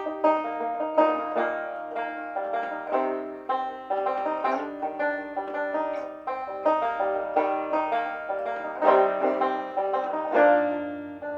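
Banjo played solo in a steady run of quickly plucked, ringing notes: an instrumental break between sung lines.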